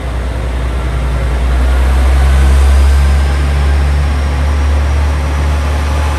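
KiHa 47 diesel railcar pulling away from the platform, its diesel engine running under power with a deep, steady drone that swells to its loudest a couple of seconds in and then eases slightly.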